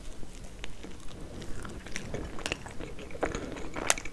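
Close-miked biting into and chewing a slice of Napoleon cake, with crisp, brittle pastry layers and cream. Small crackles and wet mouth clicks come throughout, with a few sharper clicks near the end.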